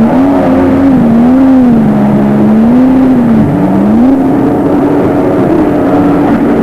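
Jet ski engine running loud and close, its pitch rising and falling in slow waves, with a sharp dip and climb about three and a half seconds in.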